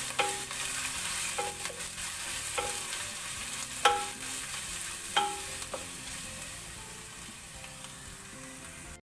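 Coconut slices and crushed ginger-garlic sizzling in coconut oil in a nonstick pan, with a wooden spatula scraping through them about once a second. The sizzle slowly gets quieter and cuts off suddenly near the end.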